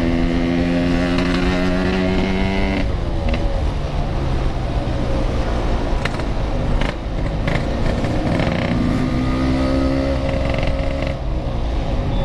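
Yamaha RX-King two-stroke motorcycle engine running under way through a packed exhaust. It holds a steady pitch, drops off about three seconds in, and picks up again at a steady pitch from about eight and a half seconds.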